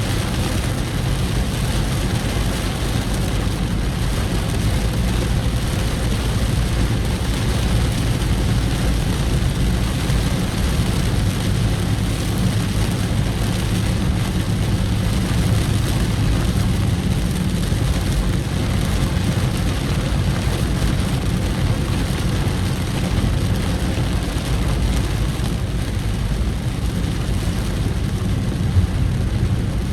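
Steady road noise of a vehicle driving along a highway: a low engine hum under a constant rush of tyre and wind noise.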